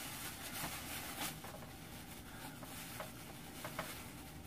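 Thin plastic bag crinkling and rustling as hands untie its knot, with a few sharper crackles.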